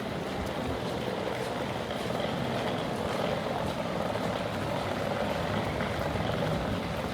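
Steady rain on a city street, with a low hum that swells a little through the middle and eases near the end.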